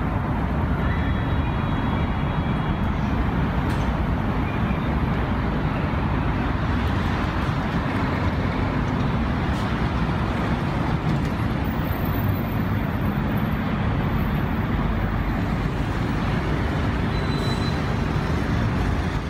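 Steady road traffic noise on a busy city street, with cars and buses running past.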